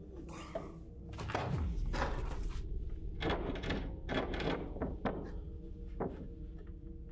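A dull thump and rustle of a man moving back in his chair. Then several short, heavy breaths, spaced about a second apart, over a low steady hum.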